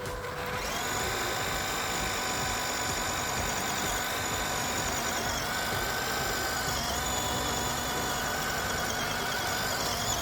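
Small electric motor and gearbox of an RC off-road car whining steadily as it drives, with a slightly wavering pitch that shifts a little partway through, over a rough low rumble.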